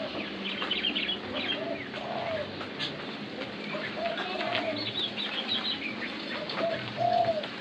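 Chickens calling: short, arched clucking notes every second or so, with many high chirps and peeps over them.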